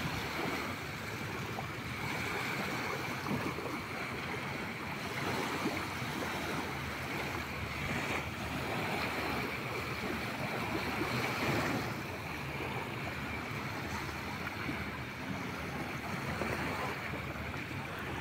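Small sea waves lapping in shallow water, a steady wash with wind on the microphone.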